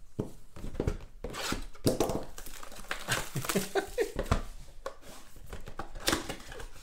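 Plastic wrap crinkling and cardboard rustling and tearing as a trading-card mega box is handled and unwrapped, in a run of irregular crackles and light taps.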